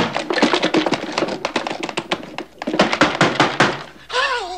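Wooden blocks clattering inside a wooden box, a dense run of quick knocks and taps.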